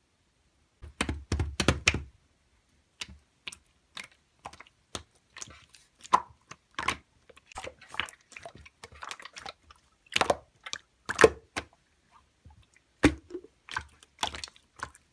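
Slime being squeezed and poked by hand, giving irregular sticky clicks, crackles and squishes in short clusters.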